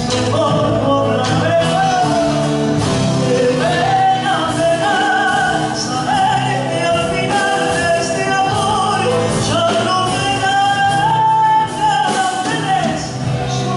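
A song: voices singing long, held notes over instrumental accompaniment.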